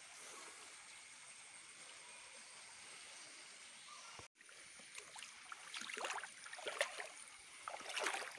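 Faint running water at a rocky pool, a steady soft hiss that cuts out for a moment about four seconds in, then irregular scuffing noises through the last few seconds.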